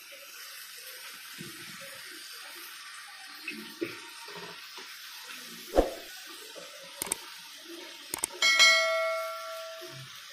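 Prawns sizzling softly in a frying pan, with a few knocks of kitchen utensils. About two-thirds of the way through, a metal kitchen vessel is struck or set down and rings with a clear tone that fades over about a second and a half.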